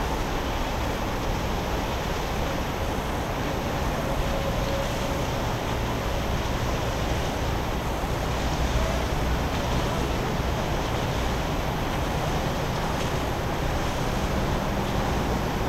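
Steady low engine rumble of a yakatabune pleasure boat passing on the river, over a constant wash of water and wind noise.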